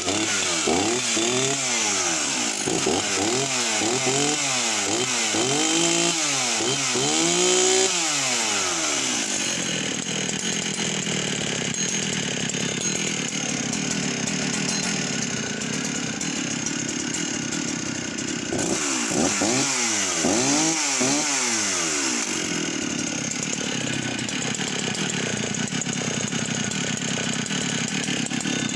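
Husqvarna 61 chainsaw's two-stroke engine, just started, blipped up and down in quick repeated revs for the first several seconds, then settling to a steady idle. Another run of revs comes about two-thirds of the way through before it drops back to idle.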